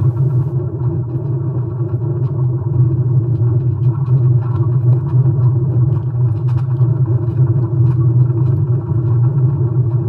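A steady, loud low rumbling drone with a constant deep hum, and faint scattered crackling ticks over it.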